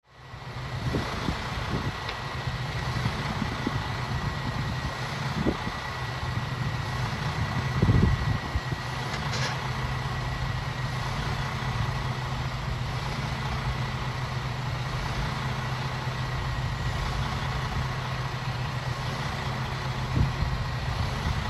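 Boom truck's engine running steadily to power its knuckle-boom crane, a low, even hum with a faint steady high whine over it. A few knocks stand out about eight seconds in.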